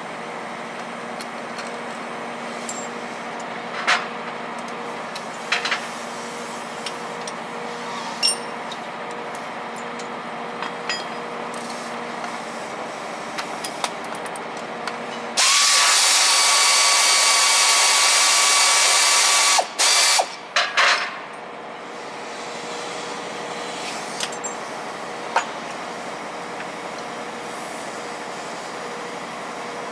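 A power wrench on a socket extension runs steadily for about four seconds, then in a few short bursts, undoing bolts on the underside of a truck gearbox. Scattered metal tool clinks sound over a steady background hum.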